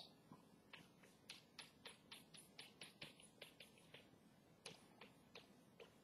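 Chalk on a blackboard: a run of faint, quick taps, about four a second, as short hatching strokes are drawn.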